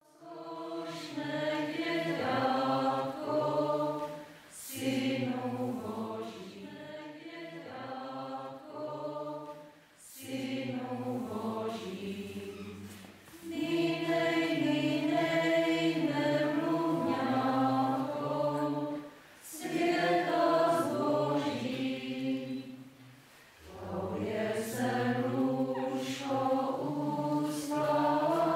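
A small group of women and men singing Czech Christmas carols unaccompanied from song sheets, in phrases broken by short pauses.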